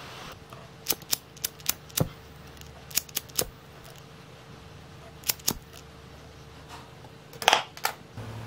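Irregular sharp clicks and light taps from a disposable lighter and small parts being handled while heat-shrink tubing is shrunk. They come in small groups, with the loudest cluster near the end, over a faint steady hum.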